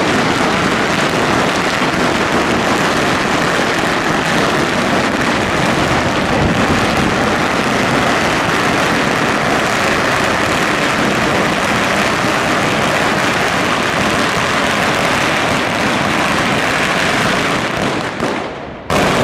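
Dense, unbroken crackling of many firecrackers and fireworks going off together. It drops away near the end, then one sharp bang.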